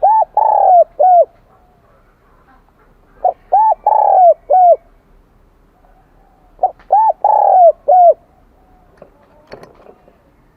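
Spotted dove cooing in the high-pitched 'kim đồng' voice: three phrases about three and a half seconds apart, each a short opening note, a couple of arched coos, a longer drawn-out coo and a short final coo.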